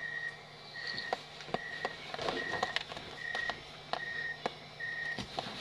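Electronic beeping: one high, steady tone repeating evenly about every 0.8 s, with scattered light clicks and knocks.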